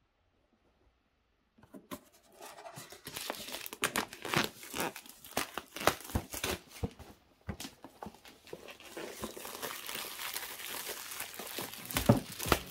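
Clear plastic wrap being pulled and peeled off a cardboard router box, crinkling and crackling irregularly. It starts about two seconds in.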